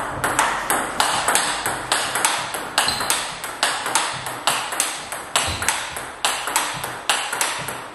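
Table tennis rally: the celluloid-style plastic ball clicks sharply off rubber-faced bats, one of them a Tibhar Hybrid AC Inside blade, and bounces on the table between hits, in an even rhythm of about three clicks a second.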